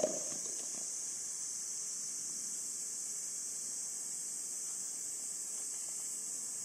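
Steady high-pitched hiss, with a brief knock at the very start that dies away within a second.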